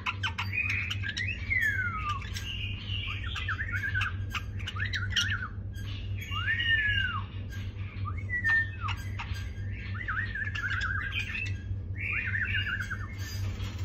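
White-eared bulbul singing: short whistled phrases every second or two, with notes sliding down, arching up and down, and quick warbled runs. A steady low hum runs underneath.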